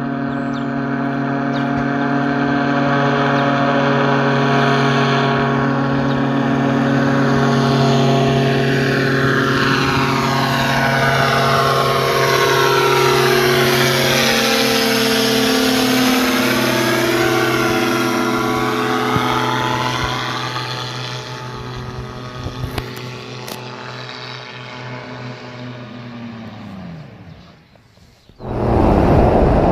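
Gyroplane's engine and pusher propeller droning steadily as it flies past overhead, the sound swelling and sweeping as it passes. About 27 seconds in, the pitch sinks and the drone dies away, and a sudden loud rush of noise cuts in.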